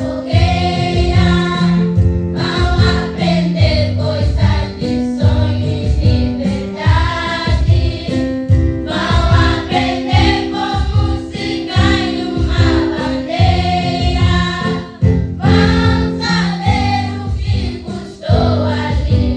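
A song sung by a group of voices in chorus, over sustained instrumental bass notes.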